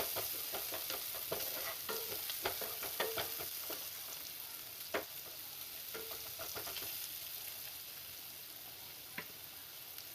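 Chopped onion, ginger, garlic and chilli with spices frying in oil in a kadai, sizzling, with scattered clicks of the spatula stirring against the pan. The sizzle grows gradually quieter.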